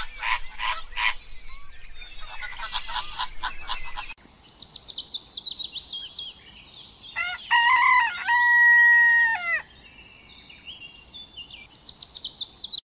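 A flock of flamingos honking and chattering. After a sudden change about four seconds in, marsh bird calls follow: quick runs of high, falling chirps around a loud, drawn-out crowing call that lasts about two and a half seconds.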